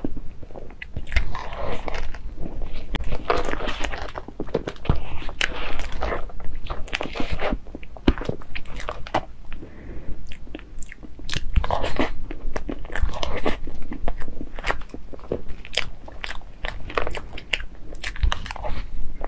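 Close-miked eating of a whipped-cream sponge cake: wet chewing and mouth sounds with many short clicks and smacks.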